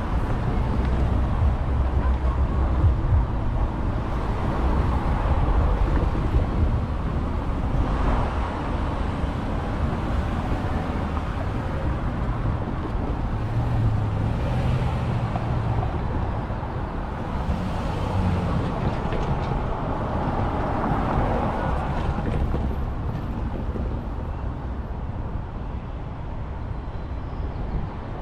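Freight cars of a BNSF manifest train rolling past, a steady rumble of wheels on rail that eases a little toward the end.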